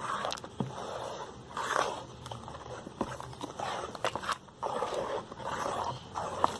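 Wooden spoon stirring a thick homemade liquid soap mixture: repeated scraping strokes through the paste, with a few sharp clicks of the spoon against the container.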